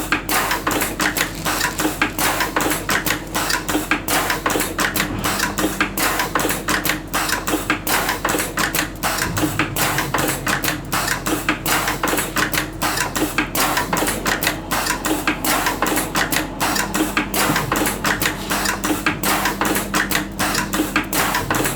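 Fully automatic wrapping machine running, its mechanism making rapid, continuous clicking and clattering over a steady hum.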